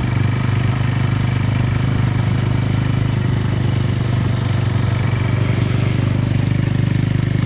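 ATV (quad bike) engine running at a steady pace while riding, a constant low drone with no change in pitch.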